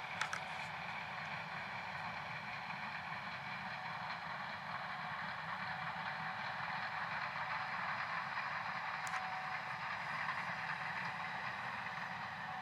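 Gleaner S67 combine running steadily while harvesting soybeans, a constant mechanical hum and hiss. A short click comes just after the start and a brief tick about nine seconds in.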